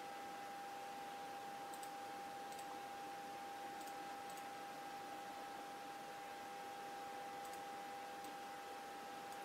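A handful of faint clicks from a computer being clicked at, over a steady low hum with a constant high-pitched tone.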